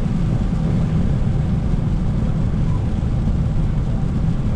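Steady low road rumble and engine drone of a car driving on a wet road, heard from inside the cabin.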